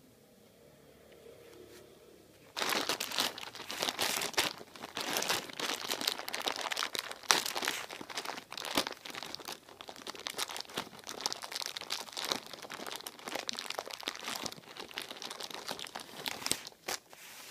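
Thin clear plastic snack bag crinkling loudly and irregularly as a hand grips and works it open, with the nuts and wrapped sweets inside shifting; it starts suddenly about two and a half seconds in.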